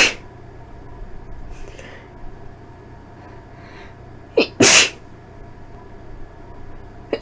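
A woman sneezing, induced sneezes set off by a nose irritated by dust. One sharp sneeze comes about four and a half seconds in, just after a quick catch of breath. The end of a previous sneeze is heard at the very start, and the catch of breath before the next sneeze comes right at the end.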